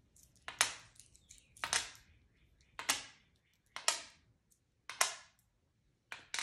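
Pennies being set down one at a time on a dry-erase board, each a sharp click with a short metallic ring, about once a second.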